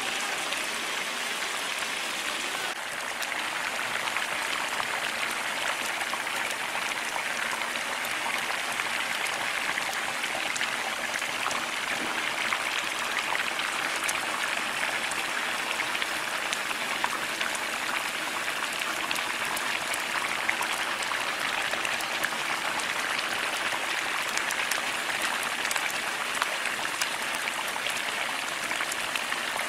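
Large pan of grated carrots and milk boiling hard for carrot halwa: a steady rush of bubbling with many small pops.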